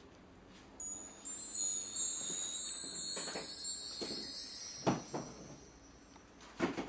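High, tinkling metal chimes ringing: many overlapping tones starting about a second in and dying away over about five seconds. A few short knocks sound in the middle and near the end.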